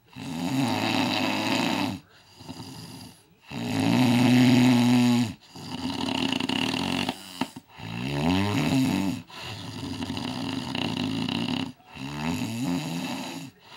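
A man snoring heavily in his sleep, not yet treated with CPAP: a steady run of loud snores, each one to two seconds long, with brief breaks between, the loudest about four seconds in.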